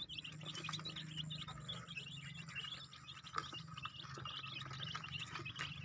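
A brood of young kampung chicks, about a week old, peeping continuously in rapid, overlapping high chirps over a low steady hum.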